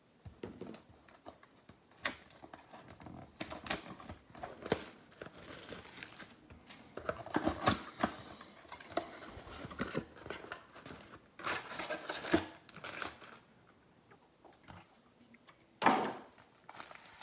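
A sealed trading-card box being torn open and its wrapping handled: crinkling plastic, tearing and scattered clicks and taps, with a louder rustle near the end.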